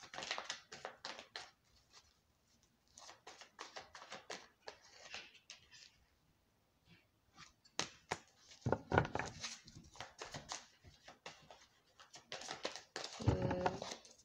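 A tarot deck being shuffled by hand: quick papery flicks and slaps of cards sliding against each other, in irregular runs with short pauses. A couple of heavier thuds of the deck being handled come about nine seconds in and near the end.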